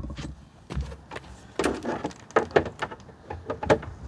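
Plastic air intake scoop knocking and scraping against the hood as it is worked down into its opening, with about half a dozen short, separate knocks.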